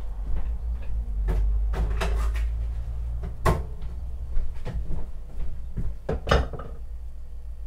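Kitchen clatter of things being handled and set down: about seven sharp, irregular knocks and clunks, the strongest around the middle and near the end, over a low steady hum.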